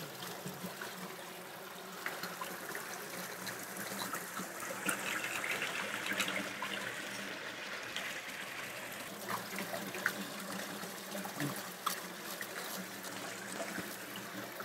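Tap water trickling steadily into a plastic colander, swelling a little partway through. Scattered light clicks and scrapes of a knife working on a wet wooden cutting board.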